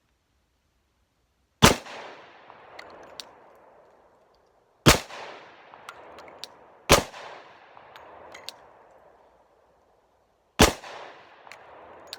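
Four single pistol shots from a Glock 29 in 10mm, fired at an uneven pace with gaps of roughly two to three and a half seconds. Each sharp crack is followed by an echo that dies away over a second or two, with a few faint small clicks between shots.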